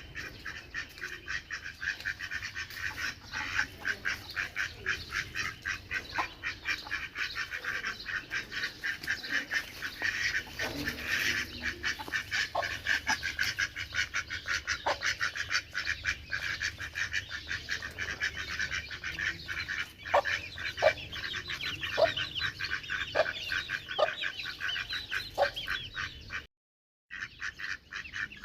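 A flock of ducks quacking, many calls overlapping in a rapid, continuous chatter, with a few clearer single calls standing out in the second half. The sound cuts out abruptly for a moment near the end.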